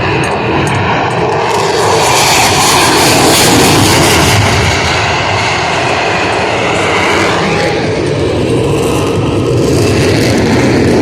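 Loud jet noise from a twin-engine F/A-18 Super Hornet flying its display, a dense rushing roar that is strongest about three to four seconds in.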